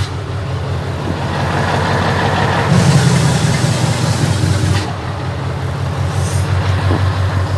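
V8 diesel truck engine running with its engine brake engaged: a steady engine note under a rushing exhaust sound that builds, is loudest about three seconds in and cuts off sharply about five seconds in. The brake is working as intended after being fixed, no longer just hissing.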